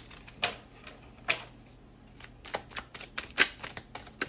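A deck of tarot cards being handled and shuffled: a series of sharp card snaps and taps, a few spaced out at first, then a quick run of about six a second.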